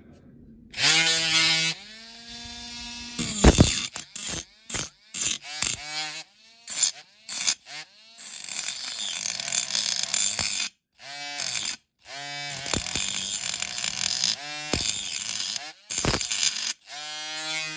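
Small handheld rotary tool cutting into a diecast metal car body, switched on and off in short runs; its whine climbs as it spins up and dips as it bites into the metal, with a couple of sharp knocks in between.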